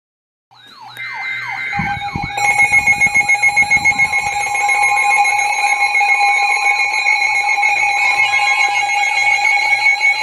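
A dense layer of electronic alarm and siren tones, the lead-in to an emergency alert. Several wailing sirens rise and fall over steady alarm tones. It starts about half a second in and gets fuller and louder a couple of seconds later.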